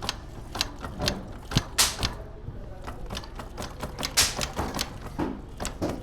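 Irregular metallic clicks and light taps of tools and engine parts being handled, some louder than others, over a steady low hum.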